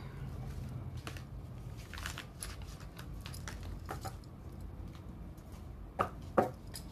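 Tarot cards being handled on a table: scattered light clicks and rustles, with two sharper snaps close together about six seconds in.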